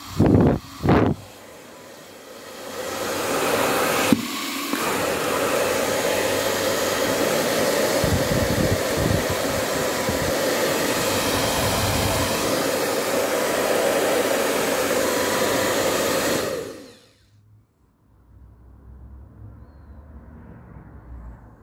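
A 2500 W Powertec TR-901 hair dryer running with a steady blowing noise. It comes on after two short blips, clicks about four seconds in, and runs until it switches off abruptly near the end.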